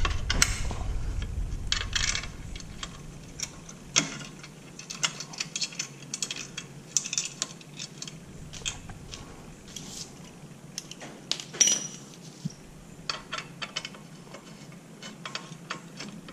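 Irregular light metallic clicks and taps as crash-bar clamp hardware is handled and a steel bolt is threaded in by hand. There is one sharper click with a brief ring about two-thirds through, and a low handling rumble in the first couple of seconds.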